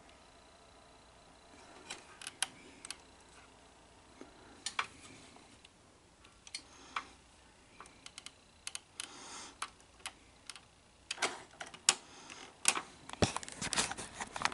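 Scattered light clicks and knocks from the opened tape transport and cassette tray of a Sony SL-HF500 Betamax VCR, coming thicker in the last few seconds.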